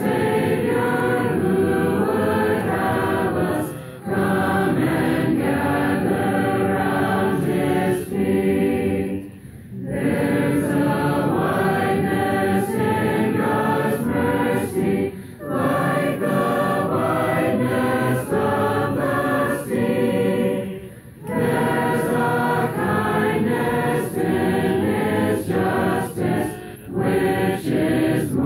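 A large congregation singing a hymn together, with short pauses for breath between lines about every five to six seconds.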